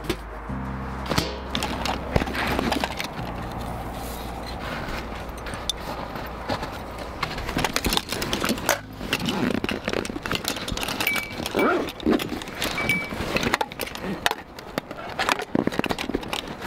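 Metal camping gear being handled: carabiners, hooks and a small tin box clinking and jangling as they are clipped onto a hanging backpack, many small clicks and rattles with a few short ringing metal tones in the second half.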